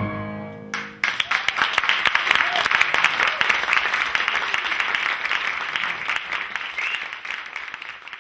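The band's final chord rings out and dies away, then audience applause breaks out about a second in, a dense patter of clapping that slowly fades toward the end.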